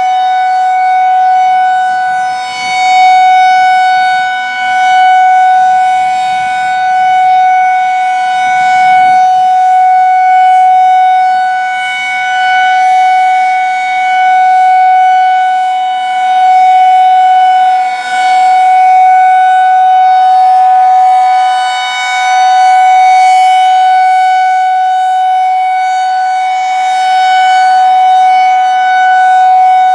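Federal Signal 2001-SRN rotating tornado siren sounding a steady alert signal: one loud, unwavering tone. The level swells and fades every few seconds as the rotating head sweeps toward and away.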